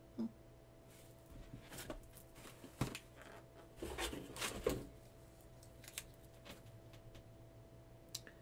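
Rustling and light knocking of a boxed item being handled and lifted out, a cluster of short sounds between about one and five seconds in.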